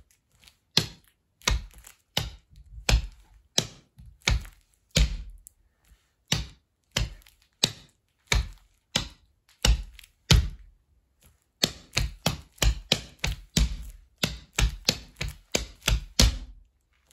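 Makeshift tap shoes, trainers with tape over the toes and heels, striking a board in toe-heel taps and stamps. The taps come at an even, unhurried pace at first, then about twice as fast for the last five seconds or so.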